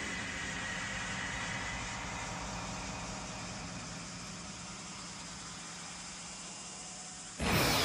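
Anime fight sound effects: a steady, engine-like rumble with hiss that slowly fades, then a sudden loud strike with a whoosh near the end.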